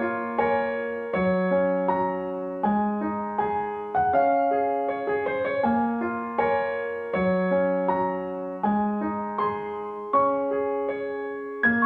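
Background piano music: gentle chords struck about once a second, each note ringing and fading.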